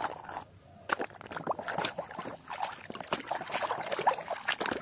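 Hand splashing and swishing a plastic toy vehicle through muddy water in a plastic tub: irregular splashes and sloshing that start about a second in.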